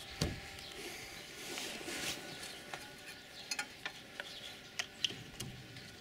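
Faint, scattered metallic clicks and light scraping of an L-shaped hex key on a car's front brake caliper as a caliper bolt is started into its thread by hand.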